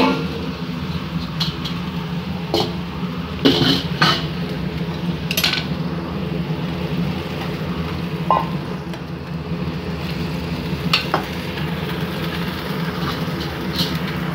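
A utensil clicking and knocking against a wok while chicken wings, potatoes and sliced onion cook in it, over a steady low hum.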